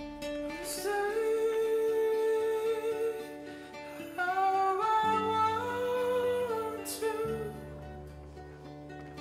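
Slow song: a singer holds long, drawn-out notes over a quiet, sparse accompaniment, the bass note shifting twice.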